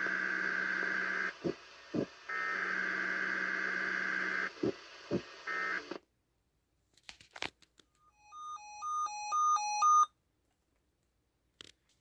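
Weather-radio alert data tones (SAME header) from a Sangean weather radio's speaker: two long bursts of fast-switching tones and a short third, with a few clicks between them. After a pause, the radio's electronic alarm beeps in a two-tone pattern, stepping louder for about two seconds, then cuts off suddenly.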